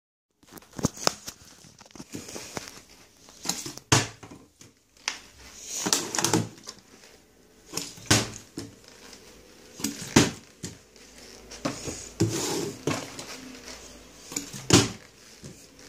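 A partly filled plastic water bottle flipped and landing on a countertop over and over: sharp knocks of the bottle hitting the surface every second or two, with crinkling of the thin plastic as it is handled between throws.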